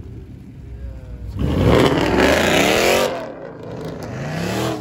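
Car engine revving hard: the pitch climbs for about a second and a half, falls away, then climbs again briefly near the end.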